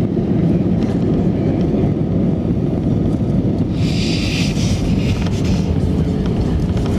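Airbus A319 cabin noise during the landing roll: a steady low rumble of the engines and the wheels on the runway. A brief hiss comes in about four seconds in.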